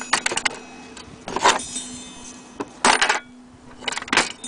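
Knocks and rattles of an old wall clock's brass movement being handled in its wooden case, four bouts, each leaving a metallic ringing that hangs on.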